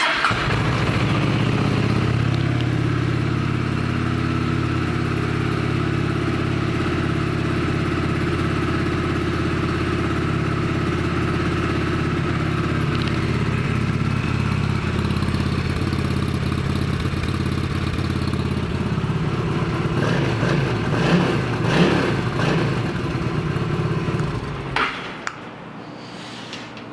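Honda Shadow Spirit 750's V-twin engine starts and runs at a steady idle, is revved briefly a few times near the end, then shuts off.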